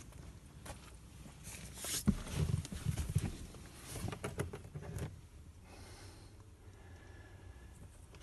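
Footsteps and handling noise: a run of sharp clicks and knocks in the middle, then quieter, with a faint steady tone near the end.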